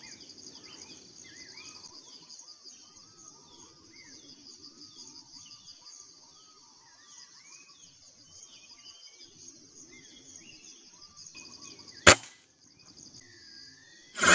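A steady high drone of insects, with small birds chirping repeatedly. About twelve seconds in, a single sharp crack that is much louder than anything else: a PCP air rifle being fired.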